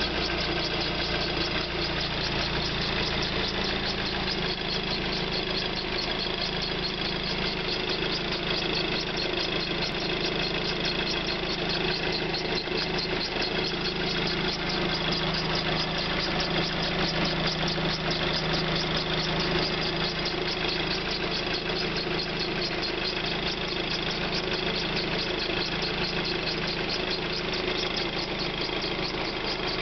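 Volkswagen Golf Mk5 engine idling steadily just after a cold start, with a rapid, even ticking over the engine note. This is an abnormal start-up noise that the owner says stops once the engine has warmed up, after about four minutes.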